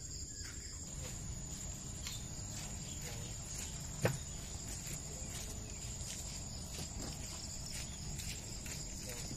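Steady high-pitched chirring of insects over a low background rumble, with a single sharp knock about four seconds in.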